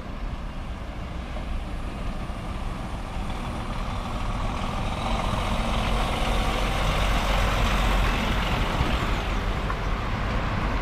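DAF articulated truck with a curtainsider trailer driving slowly past close by, its diesel engine running at low speed. The rumble builds to its loudest about two thirds of the way through as the cab and trailer go past, then eases a little.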